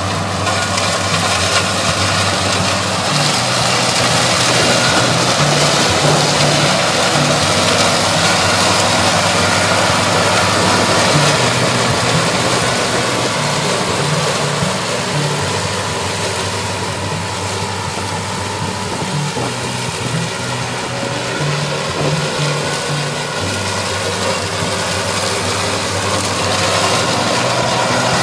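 Toro ZS4200T zero-turn ride-on mower running steadily with its blades engaged, cutting through waist-high meadow grass and weeds.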